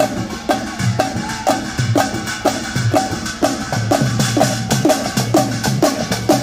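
A group of barrel drums played live in a steady rhythm, about two strokes a second at first and nearer three a second after about four seconds. Each stroke rings with a tone that drops in pitch, over deeper thumping beats.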